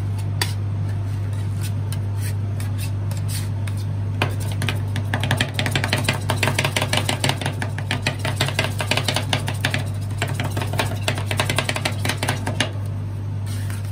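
Metal spatula edges rapidly chopping and tapping strawberry marshmallow cream mixture against a steel cold plate, a fast run of sharp clicks starting about four seconds in and stopping near the end. A steady low hum from the ice-roll machine runs underneath.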